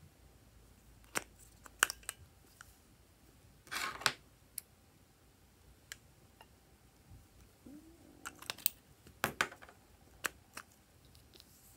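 Scattered sharp clicks and snaps from a plastic makeup case and metal scissors being handled, with a short scratchy rasp about four seconds in and a quick run of clicks near the end.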